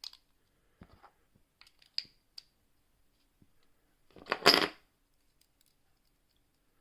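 Small metallic clicks and scrapes of homemade lock picks being handled in a British six-lever oval padlock, with a brief louder metal clatter about four seconds in.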